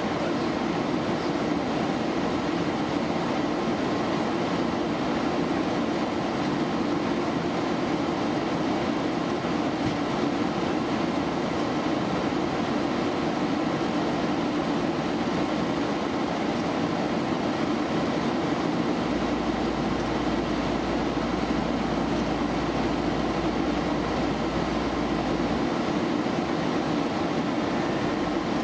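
Steady flight-deck noise of a Boeing 737 in flight: an even rush of airflow and engine noise that holds at one level throughout.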